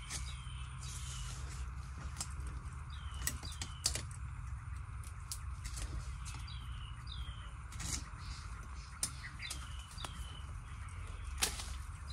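Sharp knocks and clicks of a hand tool striking earth and bamboo while digging out bamboo shoots, two of them louder, about four seconds in and near the end. A bird repeats short downward-slurred calls, often in pairs, every second or two, over a steady hiss.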